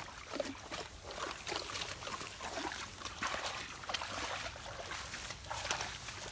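Large dogs wading in shallow water and wet grass: irregular splashing and sloshing of paws in the water, with wet grass rustling.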